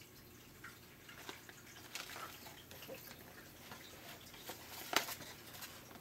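Faint scattered ticks and rustles, with one sharper click about five seconds in.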